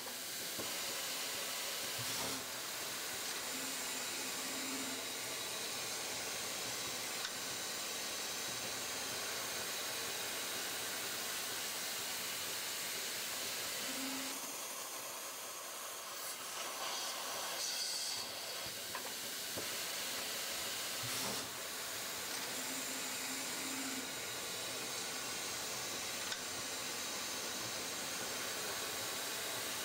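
Nachi HW-5008 hard broaching machine running a broaching cycle: a steady hiss, with a few short low hums and knocks as the broach and work table move.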